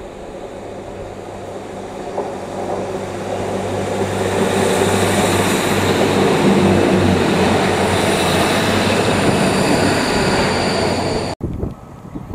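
Class 150 diesel multiple unit passing close by, its underfloor diesel engines giving a steady low drone under the rumble and hiss of its wheels on the rails, growing louder as it comes near, with thin high ringing tones over the wheel noise. The sound cuts off suddenly near the end.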